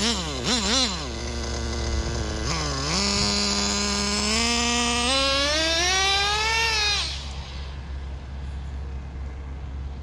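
Traxxas Jato 3.3's two-stroke nitro engine blipped up and down a few times, then held wide open as the car runs off, its whine climbing steadily in pitch for about four seconds before cutting off about seven seconds in.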